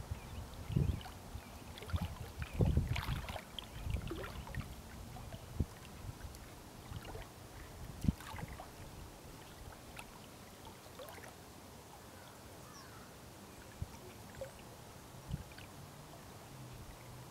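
Small waves lapping and slapping against the lake shore: irregular soft splashes, busiest in the first few seconds, then settling into a faint steady wash with only an occasional slap.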